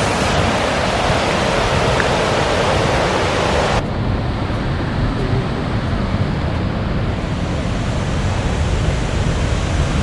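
Waterfall's rushing water, a steady noise with wind buffeting the microphone underneath. About four seconds in, the sound drops abruptly to a duller, quieter rush.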